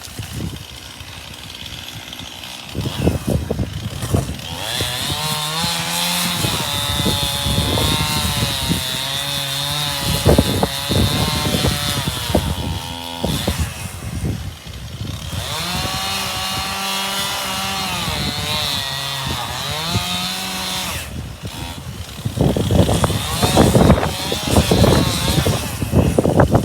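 Chainsaw running and cutting wood, its engine pitch wavering up and down under load, easing off briefly about halfway before cutting again.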